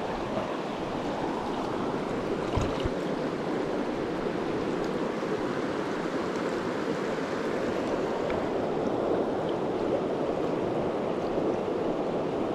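Shallow mountain stream rushing steadily over cobbles and boulders, close to the microphone.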